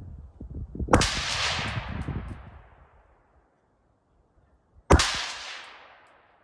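Two 5.56 carbine shots about four seconds apart, each a sharp crack followed by a long echo that fades over a second or two.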